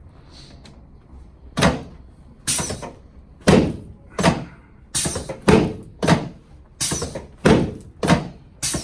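Chiropractic treatment table thudding under a quick series of adjustment thrusts on the low back: about eleven sharp thuds, roughly two-thirds of a second apart, starting about a second and a half in.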